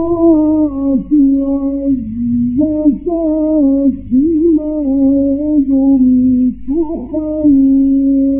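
A male Qur'an reciter in the Egyptian mujawwad style holds long, ornamented notes in a drawn-out melodic line, with brief breaks between phrases. A steady low hum from the old 1960s recording runs underneath.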